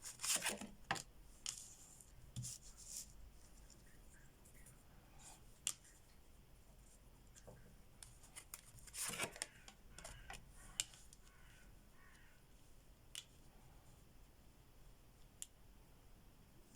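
Tarot cards being handled and laid out: scattered soft snaps and rustles of card stock, a cluster just after the start and another about nine seconds in, with a few single sharp ticks between.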